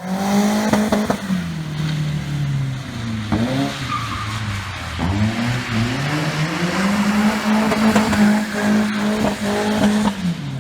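A car engine revving hard, its pitch dropping and climbing several times as it works through the gears, then held high for a few seconds before easing off near the end.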